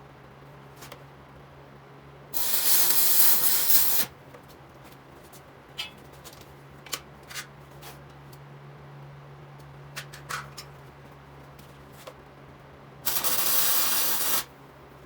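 Two loud bursts of steady hiss, each about a second and a half long and about ten seconds apart, over a low steady hum, with a few faint clicks in between.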